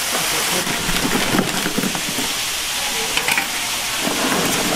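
Steady rush of running water, with oyster shells clattering and scraping against each other.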